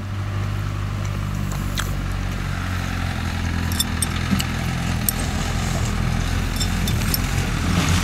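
Tractor engine running as the tractor drives past: a steady low drone that grows a little louder toward the end.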